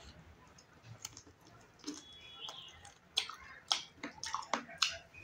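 Close-miked chewing of a handful of rice and chicken curry, with wet mouth smacks and clicks: a few soft ones at first, then a quick run of sharp, loud ones in the second half.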